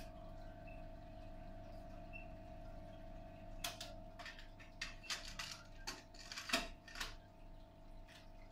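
Small plastic clicks of buttons being pressed on the CD player of a Samsung SCM-7550 mini hi-fi, over a faint steady electrical hum. A run of clicks comes from about halfway through, with a louder pair near the end.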